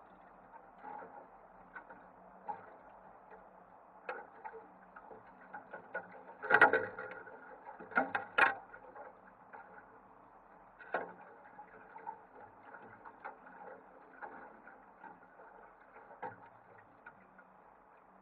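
Irregular light clicking and ticking over a low steady background, with a few sharper knocks: a cluster of the loudest about six and a half to eight and a half seconds in, and another about eleven seconds in.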